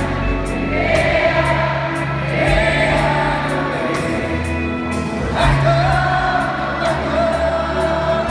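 Arena audience singing along together in sustained notes, backed by piano and double bass, with a light regular tick keeping time.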